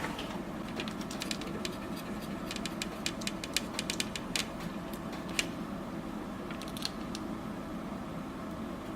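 Scattered light clicks and small scrapes of tools working over a circuit board as it is cleaned up after soldering, thinning out after about seven seconds, over a steady low hum.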